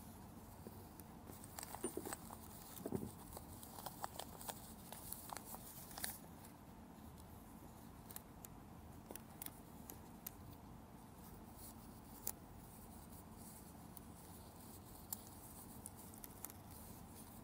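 Faint rustling and light clicks of gloved hands picking up and setting down rubber O-rings and sealing rings on a tabletop. The handling is busiest in the first six seconds, then gives way to a few isolated ticks.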